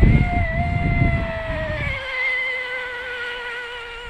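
Delta Force 29 RC boat's Rocket 3674 brushless motor whining under throttle: a high whine that climbs sharply at the start, then slowly sinks in pitch as the boat runs. The run seems slow, with this propeller not letting the boat get up on plane.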